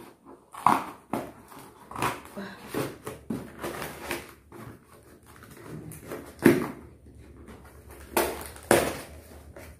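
A parcel box being opened by hand: irregular rustling and scraping of the packaging with a string of sharp knocks, the loudest about six and a half seconds in and two more near the end.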